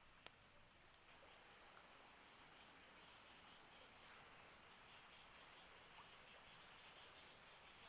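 Near silence with faint insect chirping, a high tone pulsing evenly at about four or five a second. A single sharp click comes just after the start.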